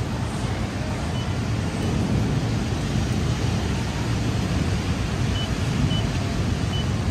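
Steady background rumble and hiss, with a few short high beeps: two about a second in and a few more near the end.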